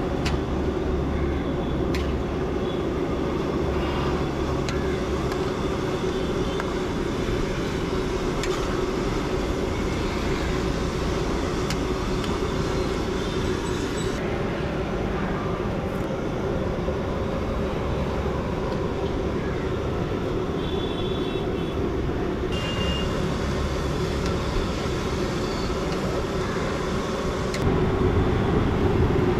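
Batter-coated cauliflower pieces deep-frying in a large iron kadai of boiling oil: a steady sizzling and bubbling.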